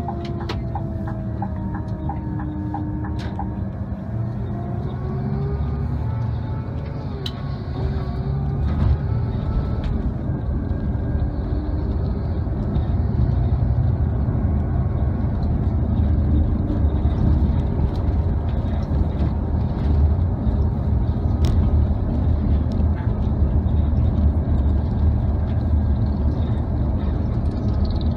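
Inside a moving coach: engine and road noise, with a whine that glides in pitch and a regular ticking in the first few seconds, then growing louder and steadier as it picks up speed.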